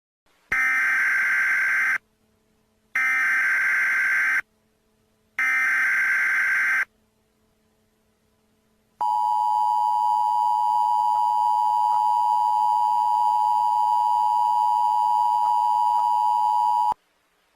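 Emergency Alert System signal: three short bursts of the SAME data header, each about a second and a half long, then the steady two-tone attention signal for about eight seconds, which cuts off suddenly.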